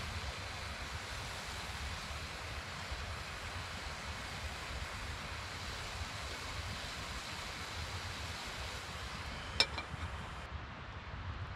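A burger patty sizzling in a metal pot on a wood stove gives a steady hiss with a low rumble beneath it. Near the end there is a single metal clink as the pot lid goes on.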